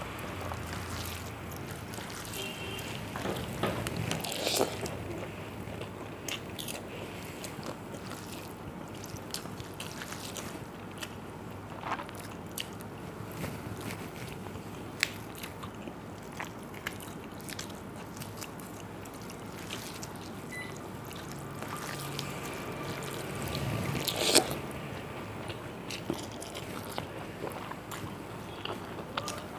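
A person eating panta bhat (water-soaked rice) with fried potato, fried pointed gourd and fried fish: chewing and biting with many scattered small crunches, clicks and scrapes, louder for a moment about four seconds in and again near twenty-four seconds.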